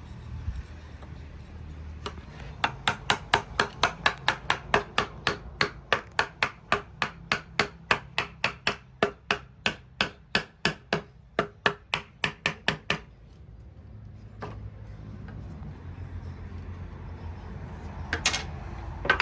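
A hammer striking wood in a steady run of blows, about three a second, for roughly ten seconds, then a single knock a little later and a couple of sharper knocks near the end.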